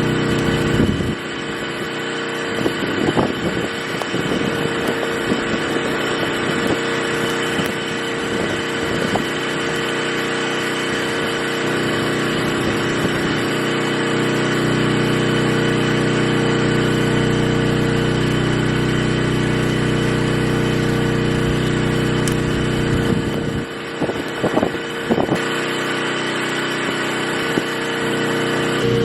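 An engine running steadily, its note wavering and unsettled in the first several seconds and again near the end.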